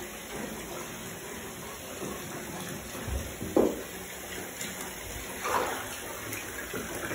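Bathtub filling from the tap: a steady rush of running water, with a couple of brief louder noises about three and a half and five and a half seconds in.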